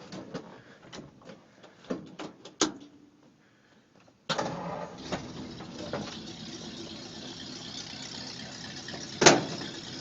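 A few scattered clicks and knocks, then about four seconds in a 1951 Ford pickup's flathead engine comes in suddenly and runs steadily, with one sharp click near the end.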